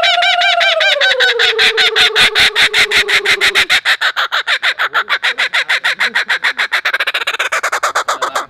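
Laughing kookaburra giving its loud, rapid cackling laugh call, a fast run of harsh notes that goes on throughout. Under it for the first few seconds a person holds a long hooting tone that rises and falls, which the bird answers.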